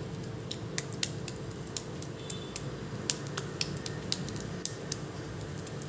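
Hands pressing and patting a sticky ground prawn masala paste around a boiled egg over a steel bowl: soft, irregular wet clicks and smacks, several a second, over a faint steady hum.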